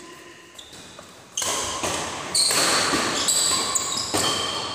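Badminton doubles rally: racket strikes on the shuttlecock and sneakers squeaking on the court floor. The play gets louder suddenly about a second and a half in.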